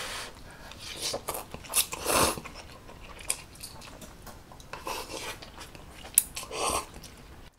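Close-up slurping of ramen noodles and chewing, in several short noisy bursts with a sharp click a little after six seconds.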